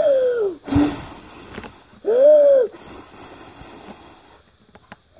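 A person voicing a mock huff and puff: a breathy voiced huff that falls in pitch, a hard blow of air into the microphone, then a second voiced huff that rises and falls about two seconds in.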